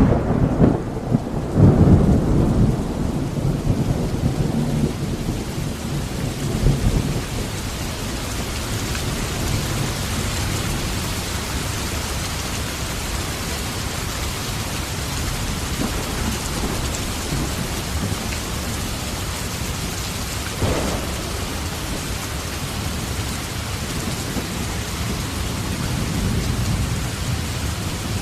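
Thunderstorm: heavy rain falling steadily, with rolling thunder rumbling loudly through the first several seconds and fainter rumbles later on.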